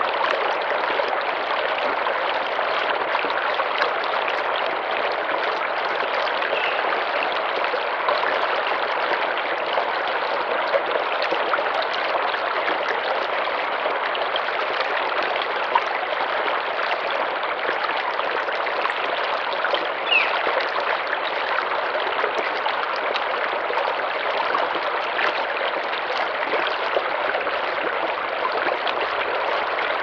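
The slow-moving Merced River flowing: a steady sound of running water with small trickles and splashes.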